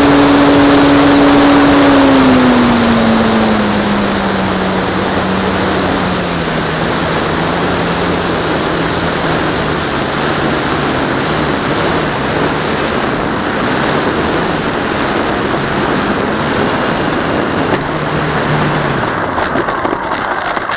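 RC model plane's motor and propeller running, with a steady hiss; its pitch falls about two seconds in as the throttle comes back, then it runs on at a lower steady pitch and fades out near the end.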